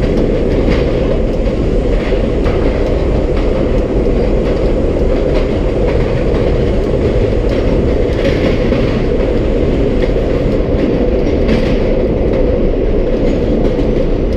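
R32 subway car running along the track, heard from inside the car: a steady loud rumble of wheels and running gear, with scattered clicks over the rails.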